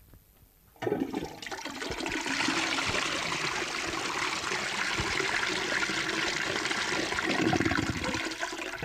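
A toilet flushing: a rush of water starts about a second in, runs steadily for about seven seconds, then dies away near the end.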